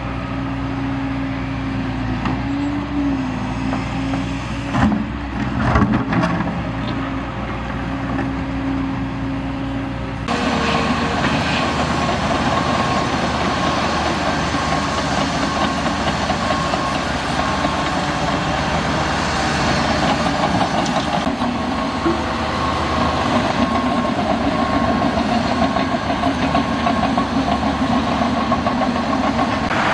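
A diesel engine runs steadily until about ten seconds in. Then the sound changes suddenly to a tipper semi-trailer unloading gravel: a dense, steady rush of gravel sliding out of the raised body, over the truck's running engine.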